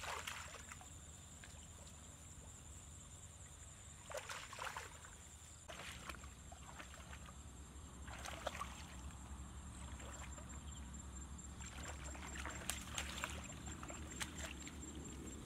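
Hands and feet splashing and sloshing in shallow muddy water, in short splashes every few seconds, as someone gropes for fish.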